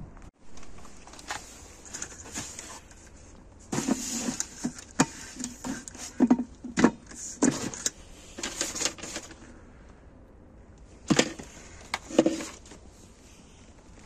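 Junk being rummaged through in a dumpster: rustling cardboard and plastic packing straps, with irregular clatters and knocks as items are moved. It gets busy about four seconds in, eases off, then comes back in another short burst near the twelve-second mark.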